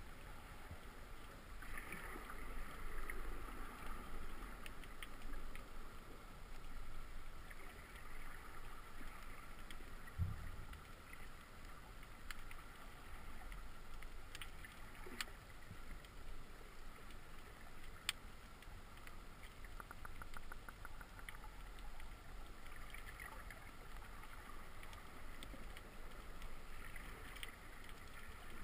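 Underwater ambience picked up by an action camera in its waterproof housing: a steady, muffled water hiss with scattered sharp clicks. A dull thump comes about ten seconds in, and a quick rattle of clicks about twenty seconds in.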